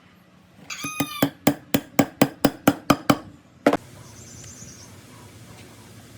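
A quick, even run of about nine sharp knocks, roughly four a second, then a single sharp knock half a second later. A brief animal call rings over the first knocks.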